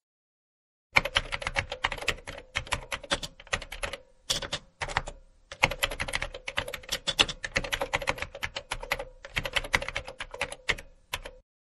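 Typing sound effect: a fast, uneven run of keystroke clicks with a few short breaks, over a faint steady tone.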